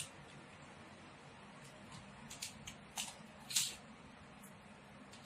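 Plastic toy track pieces being handled and fitted together: a few short, sharp clicks and crackles, the loudest about three and a half seconds in.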